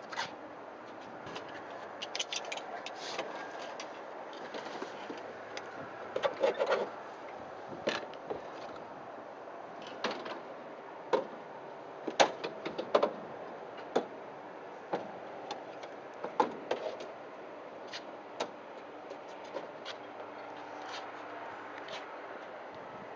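Irregular clicks, knocks and light clatter of the STOL CH 750's cabin door and its latch hardware being handled, with a cluster of sharp knocks about a third of the way in and the loudest about halfway through, over a steady outdoor hiss.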